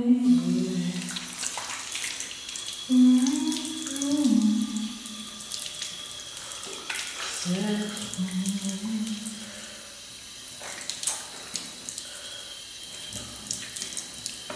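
Bathroom tap running into a sink, with splashing as a face is rinsed with cupped hands. A woman's voice sings short, held phrases over it three times, louder than the water.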